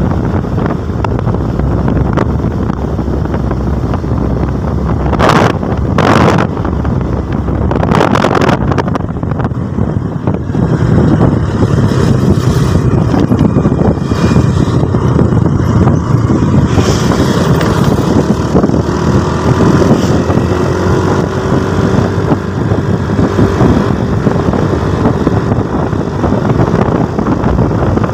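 Wind rushing and buffeting over the microphone of a camera on a moving vehicle, with a few hard gusts in the first third. A faint engine note rises and falls in pitch beneath the wind in the second half.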